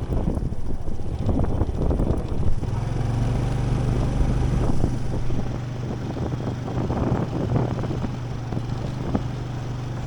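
A small engine running steadily at a constant pitch, with rough noise over it.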